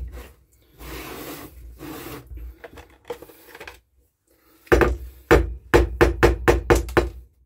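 The plastic top cover of a Homelite gas chainsaw is scraped and worked loose from the saw's body. About halfway through comes a quick run of sharp knocks, roughly four or five a second.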